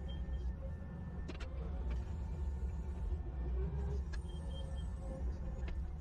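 Tractor engine running steadily with a low rumble as it drives a loader-mounted hydraulic post-hole auger drilling into soil, with a couple of short clicks.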